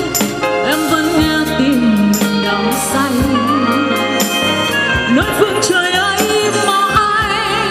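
A woman singing a Vietnamese song with vibrato into a microphone, backed by a live band of keyboards, drums with cymbals, and guitars, amplified through a PA system.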